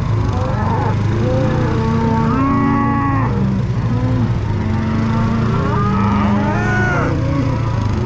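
A herd of black beef cattle mooing, many calls overlapping, some long and low, others higher and shorter, over the steady low hum of an idling engine.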